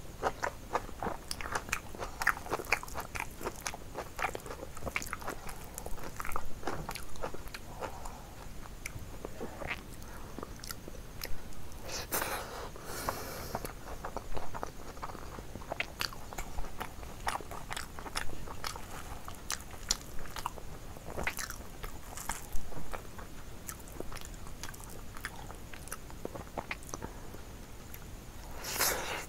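A person eating: crunchy bites and chewing with many crisp mouth clicks, densest in the first few seconds, as a raw green chilli and rice are eaten by hand. Two louder rough bursts come about twelve seconds in and near the end.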